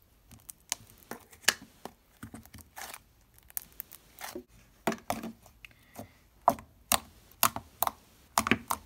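Fingers pressing into and pulling thick slime, making irregular sticky clicks and pops.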